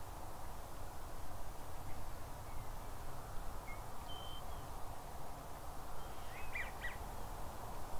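Steady outdoor background hum with a few faint, short, high-pitched bird calls scattered through it, and a quick cluster of chirps about six and a half seconds in.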